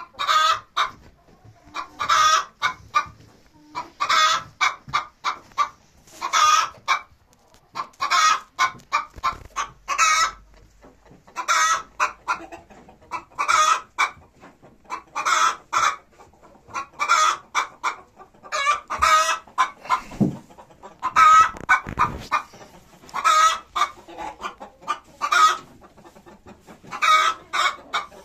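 Chickens clucking, with a loud call and a run of short clucks repeated about every two seconds.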